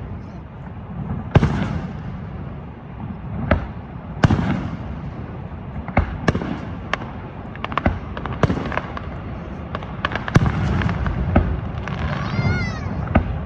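Fireworks display: repeated sharp bangs of shell bursts, a dozen or more at uneven spacing, over a continuous low rumble.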